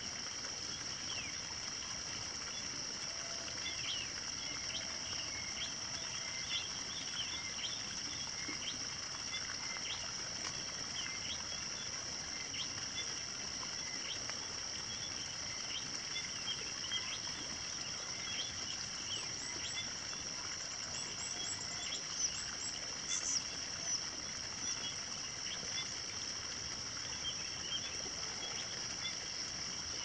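Outdoor morning chorus: a steady high-pitched drone of insects with many short bird chirps scattered over it, and a run of higher, sharper chirps about two-thirds of the way through.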